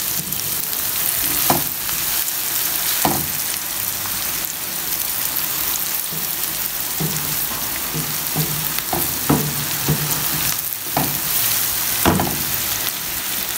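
Chopped onion, cabbage, tomato and green chilli sizzling in oil in a pan as they are sautéed until soft, with a steady hiss. A wooden spatula stirs them, scraping and knocking against the pan every second or two.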